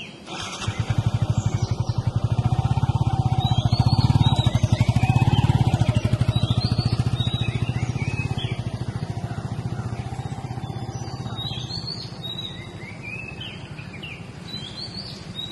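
A motorcycle engine passing by: it comes in quickly, grows louder to a peak about four to five seconds in, then fades away over several seconds. Birds chirp throughout.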